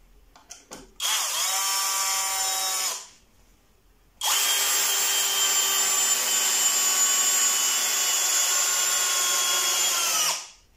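Parkside Performance X12V brushless 12-volt drill/driver in first gear, clutch bypassed, driving a long wood screw into a softwood beam. The motor whines in a short run of about two seconds, stops for about a second, then runs steadily for about six seconds, dropping slightly in pitch just before it stops.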